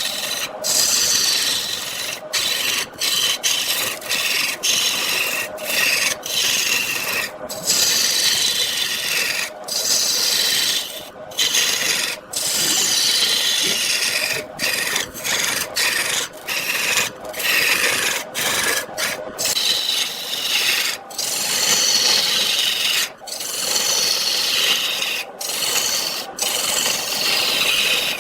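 Turning tool cutting into wood spinning on a wood lathe: a loud scraping hiss whose pitch shifts, broken by short pauses every second or two as the tool comes off the wood.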